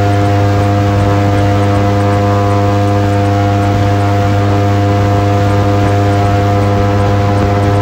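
Airboat's engine and big air propeller running at a steady speed, a loud, unchanging low-pitched hum with many overtones.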